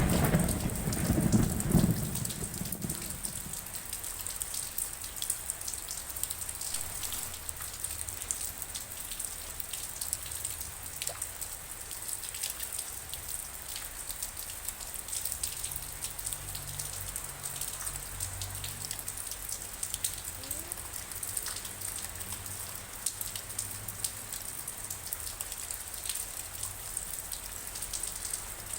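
Steady rain falling and pattering, with many small drop ticks. The tail of a thunder rumble dies away over the first two seconds, and a fainter low rumble of distant thunder comes about midway.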